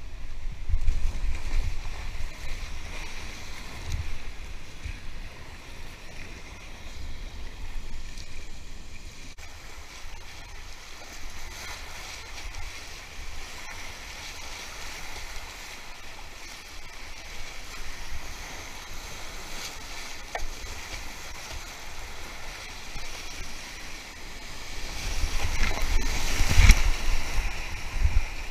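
Rushing whitewater heard from a kayak, with paddle strokes splashing in the current. The water grows louder and more choppy near the end as the kayak runs into a rapid.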